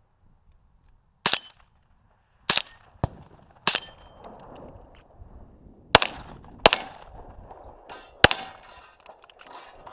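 A string of about seven gunshots fired at an uneven pace during a timed course of fire, some followed by a brief ringing.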